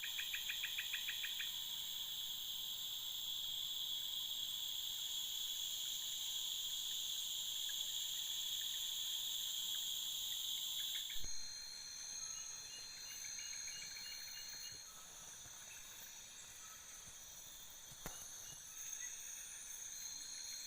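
Insect chorus in tropical swamp forest at dusk, led by the steady, high-pitched drone of the insect known locally as kenyinyit, whose 'nyit nyit nyit' call marks late afternoon turning to evening. About halfway through the sound changes abruptly to a quieter chorus of insects with short series of chirps.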